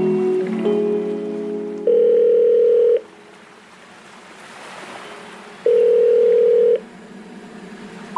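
Electronic background music of held synth tones, including two long, loud, flat tones like a dial tone. Between them, for a few seconds near the middle, a soft rushing noise of surf or wind.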